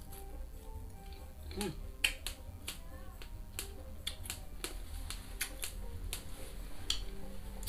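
Mouth sounds of a person eating ambarella rujak with his fingers: sharp, irregular lip smacks and clicks, about a dozen, over faint background music.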